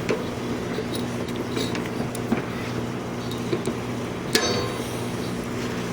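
Metal clinks and taps from hand work on a riding mower's cutting deck, with one sharp metallic clank about four seconds in, over a steady low mechanical hum.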